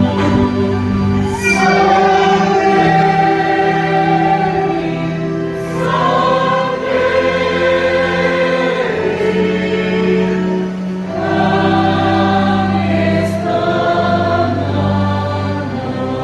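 Choir singing slow, long-held chords, the harmony shifting every few seconds, with soft sibilant consonants between phrases.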